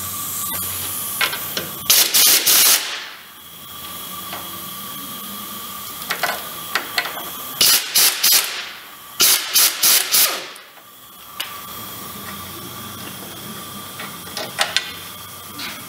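Air ratchet run in three short hissing, whirring bursts, about two seconds in and then twice around eight to ten seconds, backing out the bolt that holds the lower control arm to the steering knuckle. A few light metal clicks fall between the bursts.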